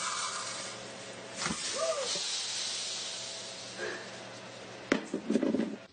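Liquid pouring from a large plastic jug into a container, a steady hiss. A sharp knock comes near the end.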